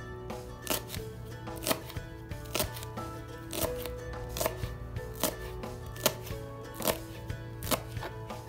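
Kitchen knife chopping fresh green herbs on a plastic cutting board: sharp knocks of the blade on the board, about one a second, over background music.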